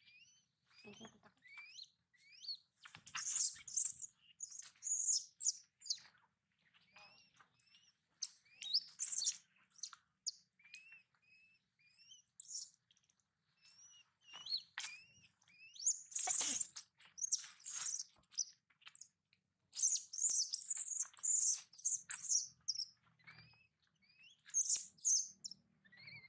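Baby long-tailed macaque giving high-pitched squeaks and squeals: short calls that glide up and down, coming in repeated bursts with brief pauses between them.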